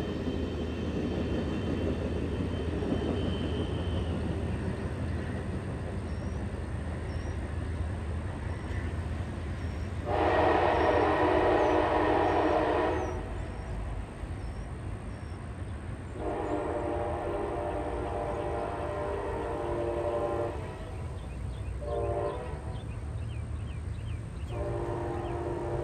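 Amtrak diesel passenger locomotive's horn, heard from well ahead of the train, sounding the grade-crossing signal: two long blasts, a short one, then a last long one starting near the end. This is the standard warning for an upcoming road crossing. Before the horn, the passenger cars give a low rolling rumble as they pass and fade away.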